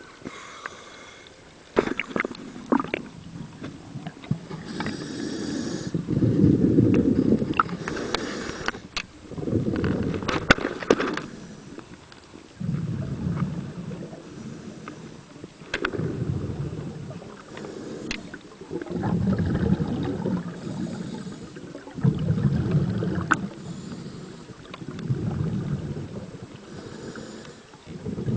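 A scuba diver breathing underwater through a vintage twin-hose regulator: each exhalation sends out a low, gurgling rush of bubbles, repeating about every three seconds, with quieter inhalations between. A few sharp clicks and knocks from the gear come through as well.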